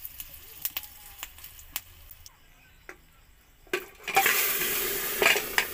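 Ghee with curry leaves and a green chilli crackling lightly in a small tempering pan over a gas flame, with scattered sharp pops. About three and a half seconds in comes a loud sizzle as the hot tadka is poured into the cooked masoor dal.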